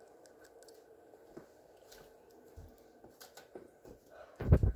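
Phone being handled close to its microphone: faint rustling and small clicks, then a cluster of loud thumps and rubbing near the end as the phone is moved.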